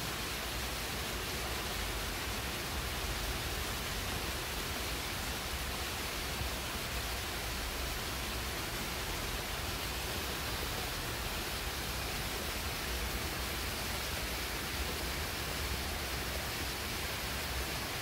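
Steady rain falling on the leaves of a shrub: an even, unbroken hiss with no single drops standing out.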